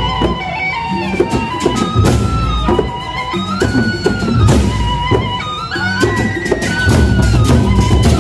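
Gendang beleq ensemble playing in procession: large barrel drums beaten in a steady, driving rhythm, with a sustained melody that slides in pitch above the drumming.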